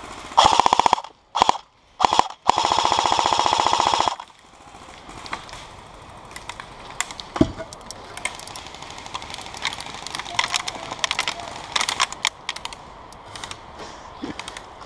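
Airsoft electric AK-47 firing on full auto: four rapid rattling bursts within the first four seconds, the last about a second and a half long. Scattered light clicks and knocks follow.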